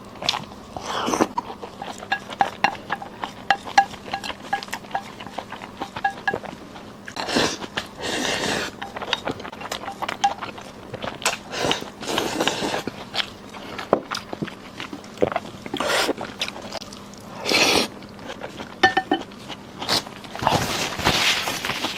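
Close-miked eating: chewing and biting, with many small sharp mouth clicks and smacks throughout and a few longer rushes of noise.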